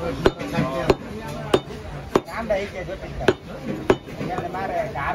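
Heavy meat cleaver chopping beef into cubes on a wooden log chopping block: about five sharp chops, roughly every half second or so, with a pause in the middle.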